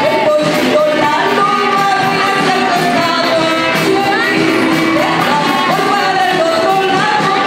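A live band playing an upbeat song to a steady beat, with women singing over electric guitar and drums.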